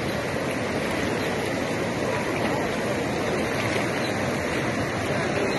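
Floodwater rushing steadily over and across a road bridge, a continuous loud rush of moving water.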